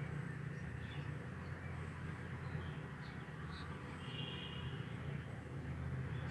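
A few faint, short bird calls, one of them held briefly a little after four seconds in, over a steady low outdoor rumble.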